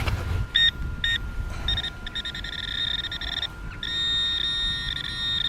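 Metal-detecting pinpointer probe giving a high electronic buzz: two short beeps, then a fast pulsing buzz, then a steady held buzz as it sits over a buried target.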